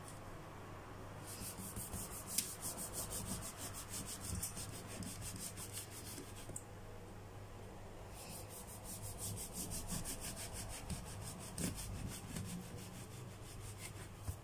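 Kitchen knife sawing through the crust of a freshly baked round loaf in quick back-and-forth strokes, a dry rasping. It comes in two spells of slicing with a short pause between.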